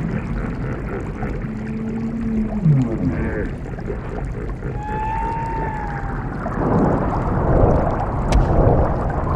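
Dubbed underwater sound effects: low whale-like moans that slide down in pitch, then a single higher call falling in pitch about halfway through, over a steady water noise. In the last three seconds a louder rushing water sound swells and ebbs.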